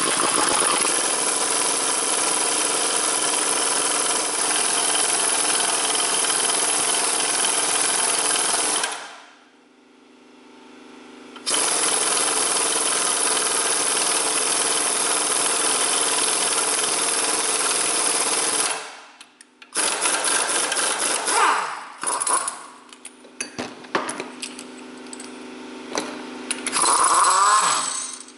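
Impact wrench hammering as it drives a threaded bearing press, drawing a new front wheel bearing into the steering knuckle. It runs for about nine seconds, stops, runs again for about seven seconds, then goes in short bursts near the end.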